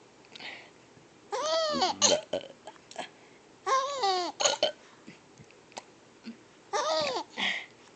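A baby's high-pitched squealing laughs, three bouts a couple of seconds apart, each an arching cry that rises and falls followed by short catches of breath.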